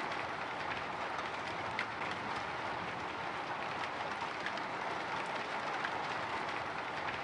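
Light drizzle pattering on a window: a steady hiss of fine rain with scattered small drop ticks.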